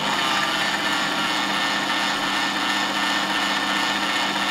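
Scheppach DP60 710 W bench drill's motor and gearbox running at a steady speed with the chuck and bit spinning freely: a steady hum under a bright rushing whine.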